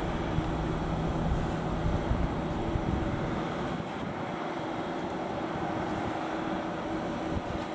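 Diesel engine of a railway track-maintenance motor car running steadily, a low rumble with a steady hum, heard from a distance; the rumble eases slightly about three and a half seconds in.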